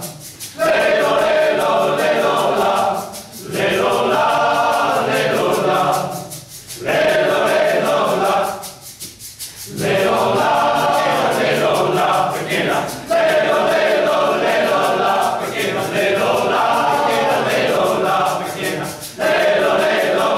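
Men's choir singing in several parts, in phrases of a few seconds each with brief breaks between them, the longest about nine seconds in.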